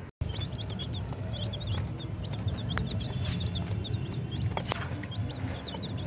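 Several chicks peeping: short high cheeps in quick runs, over a steady low rumble.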